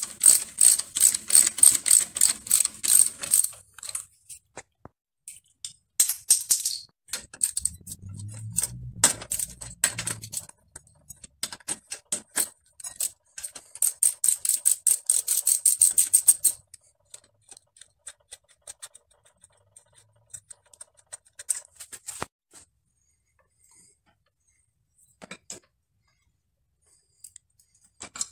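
Ratchet wrench clicking rapidly as bolts on a mountain bike's rear derailleur and crank are spun loose, in a fast run for the first few seconds and again about halfway through. A short low rumble comes between the two runs, and scattered clicks and knocks of tools follow before it goes mostly quiet near the end.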